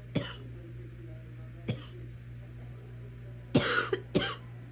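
A girl coughing in four short, separate coughs, the last two close together near the end.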